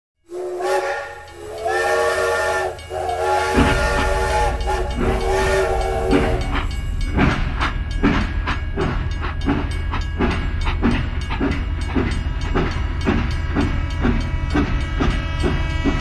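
Steam locomotive sound: a chime whistle blown in a few long blasts, then the low rumble and steady rhythmic chuffing and clatter of the train under way, about two beats a second.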